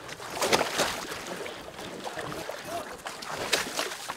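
Sea water splashing and slapping against a fishing boat's hull, with sharper splashes about half a second in and again about three and a half seconds in.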